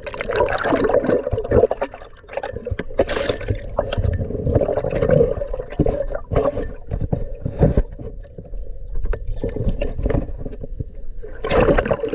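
Sea water sloshing and splashing around an action camera at the surface as it dips in and out of the water, with bubbling and irregular knocks.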